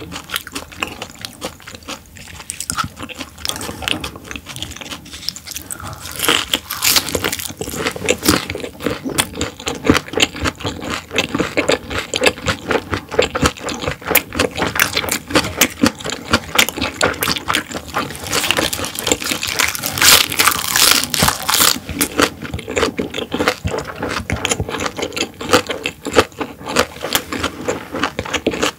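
Close-miked chewing and crunching of crisp food: a quick, irregular run of crunches and wet chews that is busiest a little past the middle.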